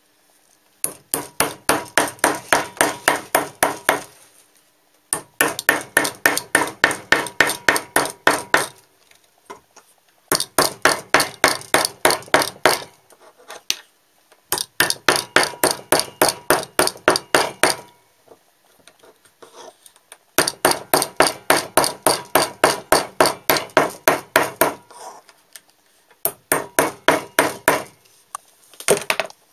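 A steel wood-carving gouge driven into a wood block by rapid light blows, about six a second, in six runs of a few seconds each with short pauses between.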